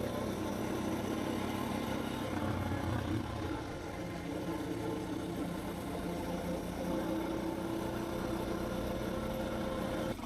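Suzuki DR650's big-bore single-cylinder four-stroke engine running as the bike is ridden along, its note shifting a little up and down with the throttle.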